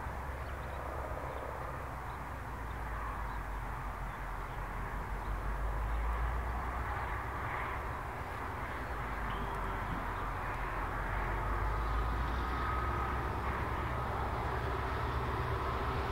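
Distant diesel locomotives of an approaching freight train, NR-class and G-class units, running as a low, steady drone that grows slowly louder.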